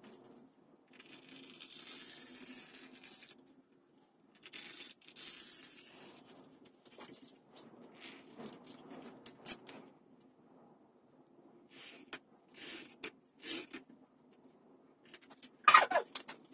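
Leather strips, paper pattern and steel rulers being handled on a workbench: rustling and scraping as the pieces are slid and laid out, with scattered light taps. Near the end comes a sharp metal clatter with a brief ring as a steel square is set down.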